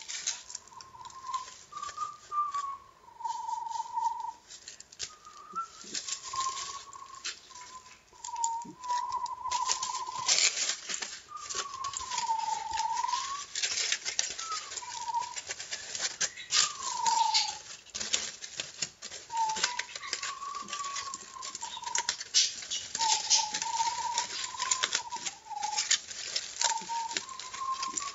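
Aluminium foil crinkling and crackling as it is handled and folded in the hands, with a person whistling a wandering tune over it in short, gliding phrases.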